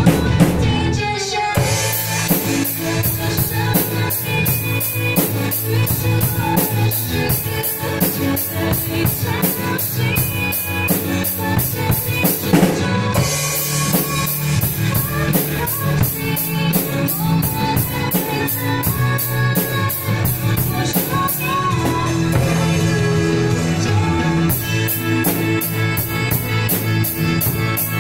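A young drum student playing a drum kit along to a pop backing track with guitar: an even run of cymbal strokes over kick and snare, the cymbal dropping out briefly about halfway through.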